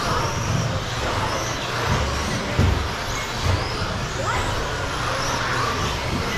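A pack of radio-controlled stadium trucks racing: motors whining up and down in pitch as they accelerate and brake, over a steady noise of tyres on the carpet track, with a few dull thumps near the middle.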